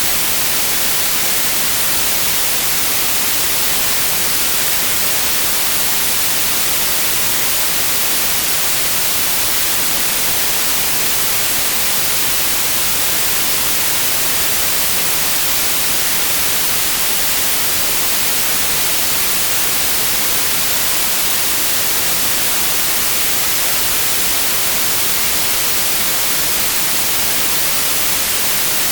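Steady synthetic white noise, an even hiss strongest in the high frequencies, with no change in level.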